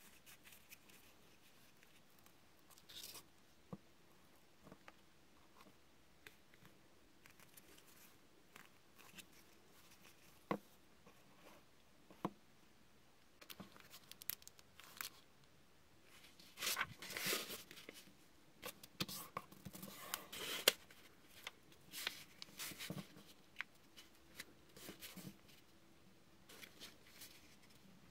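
Paper handled and folded by hand: scattered soft taps and creases at first, then denser rustling and crinkling from a little past the middle.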